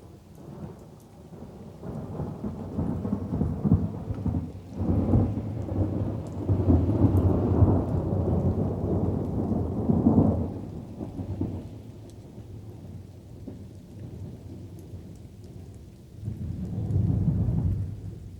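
Rolling thunder over light rain: a long, deep rumble swells up soon after the start, stays loud for several seconds and fades out, then a second, shorter rumble comes near the end.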